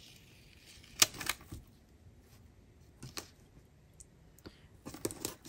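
Fingers and nails lifting and pressing a paper box sticker onto a planner page: a few scattered light clicks and taps, the sharpest about a second in and a small cluster near the end.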